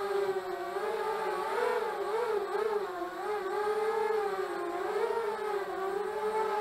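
Eachine Falcon 180 racing quadcopter's brushless motors and propellers whining as it flies low, the pitch wavering up and down with each throttle correction.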